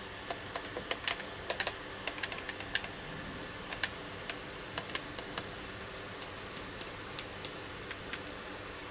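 Front-panel push buttons of a Nakamichi 1000ZXL cassette deck being pressed one after another to check that they work: a run of quick, light clicks, closely spaced for the first few seconds, then fewer and farther apart.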